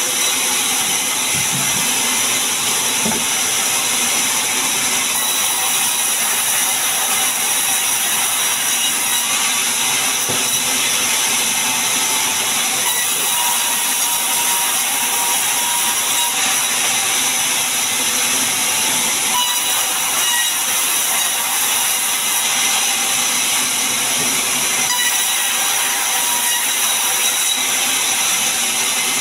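Large sawmill band saw ripping lengthwise through a mahogany log, a loud, steady hiss of cutting with no pauses.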